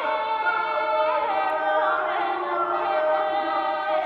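Recorded singing voices layered into a choir-like cluster, holding long overlapping notes that slowly shift in pitch, played back by an interactive sound sculpture.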